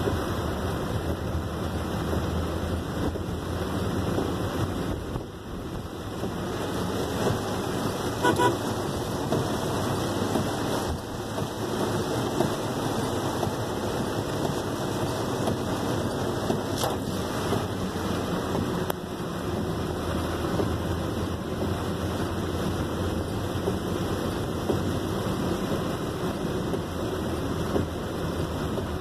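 Heavy rain falling on a moving car, heard from inside the cabin, with the steady hiss of tyres on the wet road and traffic around. A brief car horn toot about eight seconds in.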